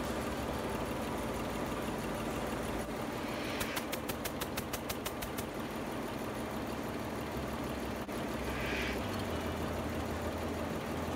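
Sulzer 6AL 25/30 six-cylinder diesel generator running steadily. Near the middle, a quick run of sharp ticks at about six a second lasts roughly two seconds, and a brief hiss follows a few seconds later.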